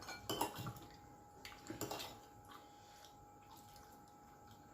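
A few faint clinks and taps of dishes and cutlery during a meal, mostly in the first two seconds, over a faint steady high tone.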